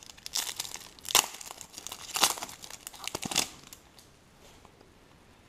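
Foil trading-card pack wrapper being torn open and crinkled by hand, a string of sharp crackles that stops about three and a half seconds in.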